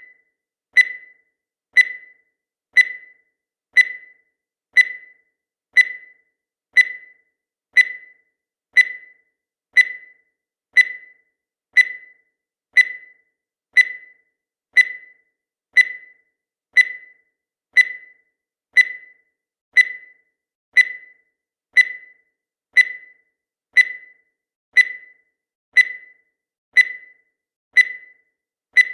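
Countdown timer sound effect: a short, high electronic beep once a second, each one starting sharply and fading quickly, counting off the seconds.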